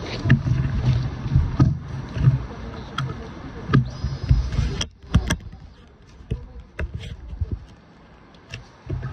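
Irregular low rumbling of wind and handling on the phone microphone, with a few sharp clicks around the middle as the motorcycle's ignition is switched on. The engine is not yet running.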